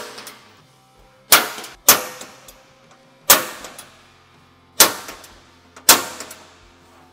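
Five loud metallic clangs at uneven intervals, each ringing briefly: a stainless steel truck fender being handled and set down.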